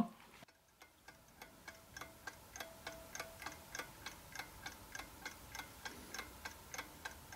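Clock ticking: faint, even, rapid ticks that fade in about a second in and keep a steady beat.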